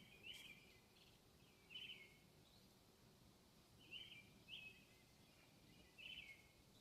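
A bird calling with short chirps, about five of them spread unevenly, faint against quiet outdoor background noise.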